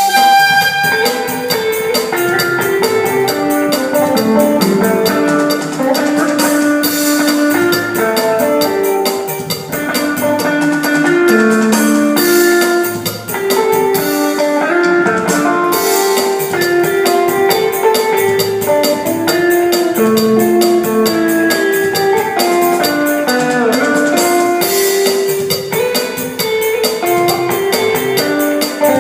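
Korg Pa600 arranger keyboard playing a cha-cha-cha style: a melody over the auto-accompaniment's drum kit, percussion and guitar-like backing.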